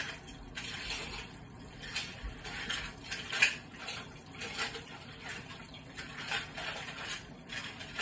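Aluminium foil arcing inside a running microwave oven: irregular crackles and snaps, the loudest about three and a half seconds in, over a steady low hum.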